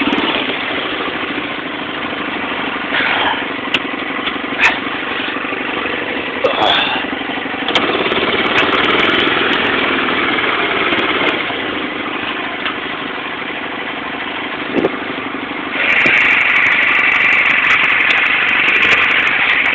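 Honda FourTrax 300 ATV's single-cylinder four-stroke engine running under way on a rough trail, with scattered short knocks. About sixteen seconds in, the engine note gets louder and higher.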